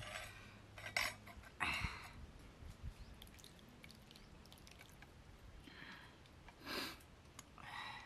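Fish curry being tipped and ladled out of a clay cooking pot onto rice on a banana leaf: a few short, soft pouring and scraping sounds, the loudest near seven seconds in.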